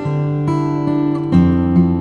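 Background music: acoustic guitar strumming and picking, with chord changes about every half second.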